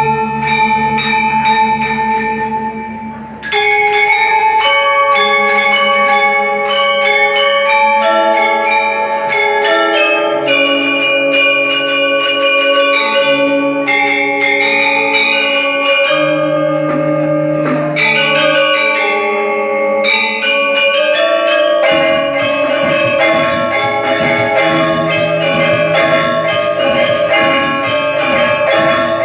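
Music played on ringing, bell-like tuned instruments: sustained notes in a moving melody over held lower notes. It starts softly and becomes louder about three and a half seconds in, with a fuller bass from about twenty-two seconds in.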